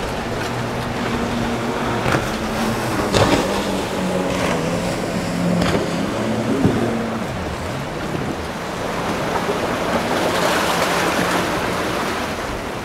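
Motorboat engine running over choppy water, its hum shifting in pitch, with splashing waves and wind, and a few sharp knocks along the way.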